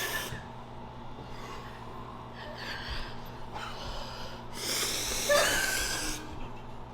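A person breathing hard and noisily through the mouth, with forceful hissing breaths at the start and again about two-thirds in, a reaction to the burn of very hot chili chocolate on the tongue.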